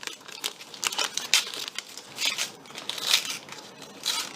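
Trading-card pack wrappers being torn open and crinkled, a series of short crackling rustles.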